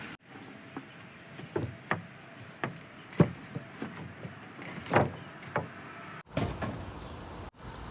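A series of irregular knocks and clunks, about a dozen, over a low background, broken by abrupt cuts about six and seven and a half seconds in.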